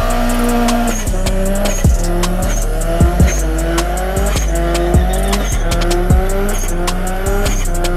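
A car doing a burnout: the engine is held high in revs, its pitch climbing and dropping back about once a second, over tyre squeal, with several sharp cracks.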